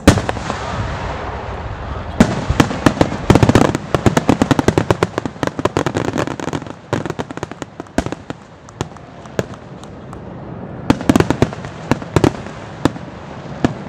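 Aerial fireworks shells bursting: a loud bang right at the start, then many rapid crackling pops in dense clusters that thin out, with another burst of crackles near the end.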